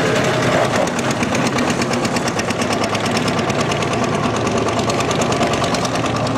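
Two-cylinder Petter PH2 air-cooled diesel of a 1976 Benford dumper running under way, a fast, even knock of firing strokes. It grows slightly fainter as the dumper drives off.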